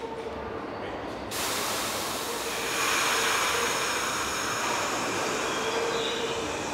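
New York City subway train pulling out of a station, heard from inside the car: a sudden sharp hiss of air about a second in, typical of the brakes releasing, then the louder rumble and whir of the motors and wheels as the train gets moving, over a steady hum.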